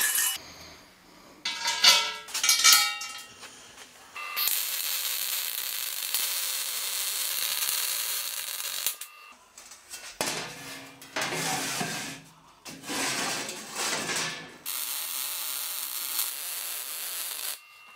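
Arc welding on a steel square-tube frame: a few sharp metal knocks and clatters about two seconds in, then a long steady hiss of the arc. The hiss stops, two shorter rougher bursts follow, and near the end a second long steady stretch of arc.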